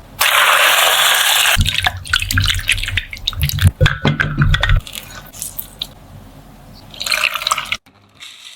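Liquid pouring for about a second and a half, then a run of small clicks and knocks.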